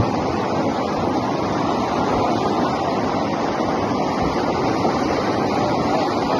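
Steady rushing noise of fast-flowing floodwater, even and unbroken.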